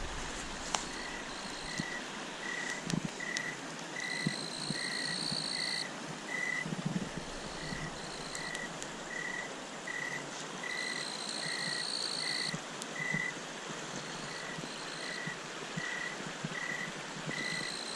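Night chorus by a stream: crickets trill in spells, and a short high peep repeats steadily about one and a half times a second, over the steady hiss of running water. A few sharp clicks come through now and then.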